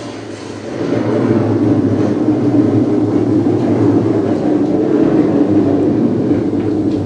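Loud, steady rumbling sound effect from the show's soundtrack with a low drone beneath, swelling about a second in.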